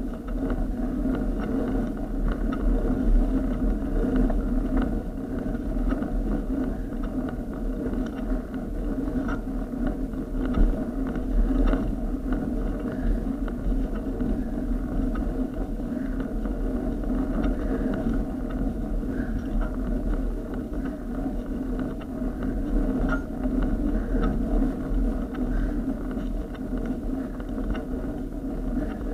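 Steady rumble of a bicycle climbing slowly up a steep, rough tarmac lane: tyre and frame noise with small clicks and knocks scattered through it.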